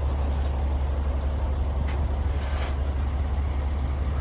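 Steady low rumble of a large vehicle's engine idling.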